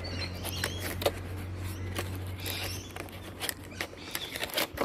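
Fingers prying open and handling the flaps of a paperboard box: a run of light scratches, taps and rustles of card. Under them a steady low hum fades out about three and a half seconds in.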